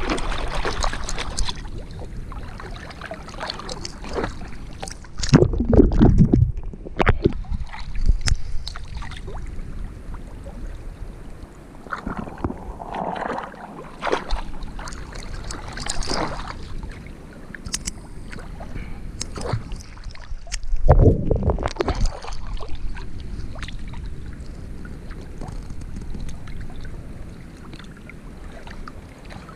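Water splashing and sloshing right at a camera held at the surface, from a person swimming through a canal. Louder splashes come about five seconds in and again about twenty-one seconds in.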